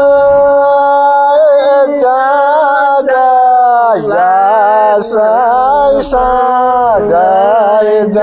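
A man singing a Nepali folk song in a full voice, with a long held note at the start and then a wavering, ornamented melody.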